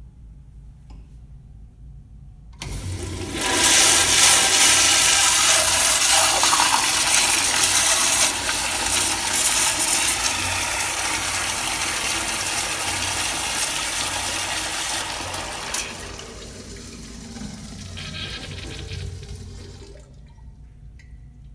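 Crane Plumbing toilet flushed by a chrome flushometer valve. A sudden loud rush of water starts about three seconds in and holds steady for about twelve seconds, then dies away over the last few seconds.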